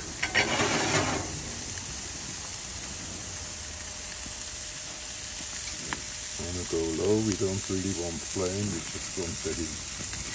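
Raw Kobe beef burger patties sizzling on a hot gas grill grate, a steady hiss that swells briefly within the first second.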